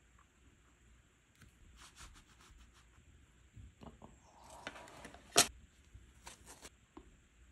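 Small clicks and crackles from fine tweezers and water droplets worked into a pressed eyeshadow palette. The clicks are scattered at first, then come closer together, with one sharp, loud click a little after five seconds in.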